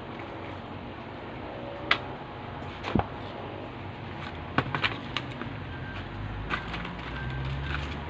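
Scattered sharp clicks and knocks of hand work on a washing machine motor being rewound, with a few faint taps between them. A low rumble builds from about six seconds in.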